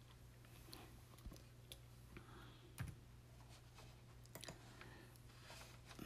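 Near silence with faint, scattered clicks of typing on a computer keyboard over a low steady hum.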